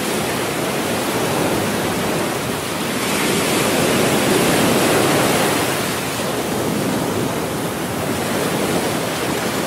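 Small waves washing up a sandy beach: a steady rush of surf that swells and falls back, loudest about four to five seconds in.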